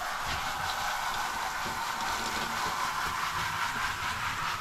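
Shower head spraying water steadily onto a dog being bathed.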